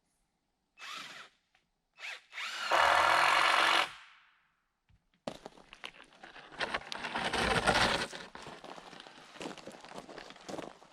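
Power drill used in framing timber: a short burst, then a steady run of about a second and a half, then after a pause a longer, rougher stretch of tool noise with irregular knocks.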